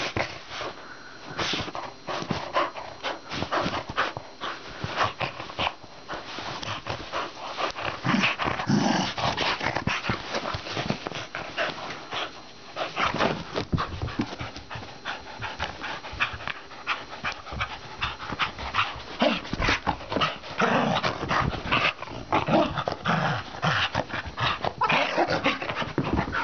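Dogs playing roughly: a busy, continuous run of scuffling, rustling and quick knocks with panting breaths, broken by a few short low growls.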